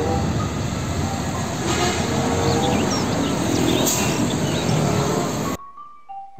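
Heavy diesel truck, an Isuzu car carrier, running past amid road traffic: a dense, steady rumble of engine and tyres, with birds chirping faintly behind it. The sound cuts off suddenly near the end.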